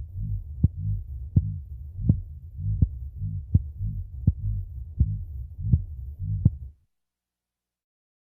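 Heartbeat sound effect: steady low thumps, about 80 beats a minute, with a sharp click on each beat. It cuts off abruptly near the end.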